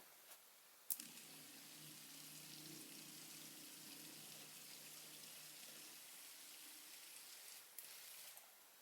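Small electric water pump starting with a click about a second in and running with a faint low hum, which stops about six seconds in, over a steady faint hiss.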